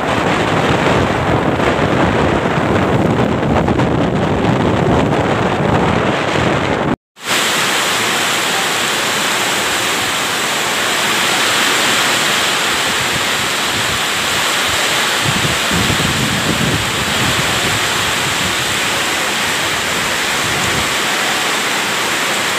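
Typhoon wind buffeting the microphone with surf pounding behind it, then, after a brief dropout about seven seconds in, a steady hiss of torrential typhoon rain and wind lashing trees.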